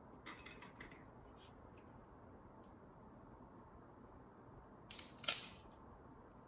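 Faint handling noises while fitting a motion sensor with adhesive and tape: soft crinkly rustling and a few small clicks, then two short, sharp crackles about five seconds in.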